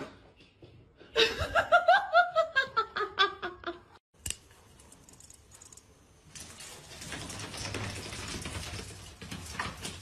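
A person laughing in a quick run of bursts that fall in pitch. After a sharp click comes a steady, quieter rustling and scraping noise.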